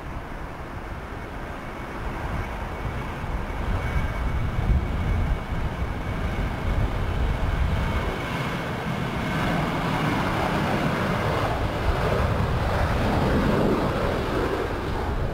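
Boeing 737-800's CFM56 turbofan engines at takeoff thrust, a continuous jet rumble that grows steadily louder as the airliner accelerates down the runway and lifts off. A thin steady whine runs through the first half.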